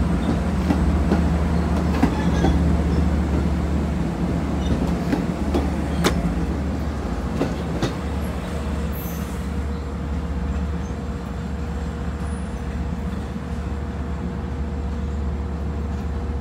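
Long Island Rail Road push-pull train, hauled by a DM30AC locomotive, pulling away from the platform. A steady low drone runs under sharp clicks of wheels crossing rail joints over the first half. The sound eases off slightly as the trailing cab car moves away.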